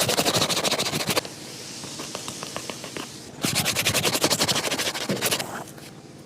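A stiff shoe-shine brush scrubbing quickly back and forth across a shoe's leather, in two bursts of fast rapid strokes with a quieter rubbing between them.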